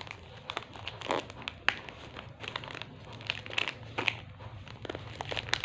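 Plastic parcel wrapping crinkling and crackling as it is pulled open by hand, in irregular bursts of crackles.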